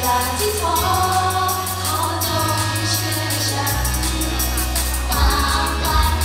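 Pop song with group vocals singing over the music, with held bass notes underneath.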